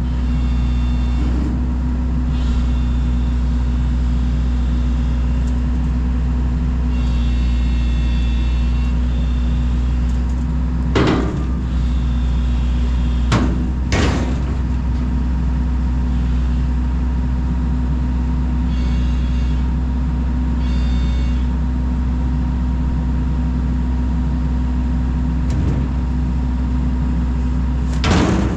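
Sany SY135C excavator's diesel engine running steadily, with a higher hydraulic whine rising in a few times as the machine works. There are four sharp metal clunks: one about eleven seconds in, two close together a few seconds later, and one near the end.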